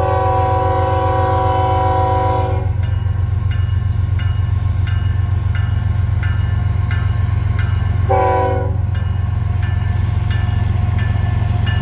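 Diesel locomotive air horn on an approaching freight train: one long blast of about two and a half seconds, then a short blast about eight seconds in. In between, a faint ringing repeats about twice a second over a steady low rumble.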